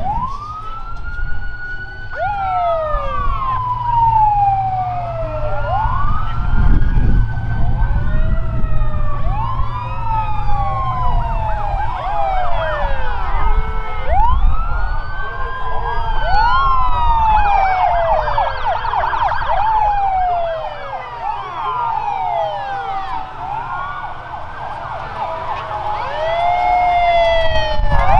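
Sirens of several emergency vehicles sounding at once, many overlapping wails rising and falling in pitch, with a rapid warbling yelp about two-thirds of the way through, over the low rumble of passing vehicles.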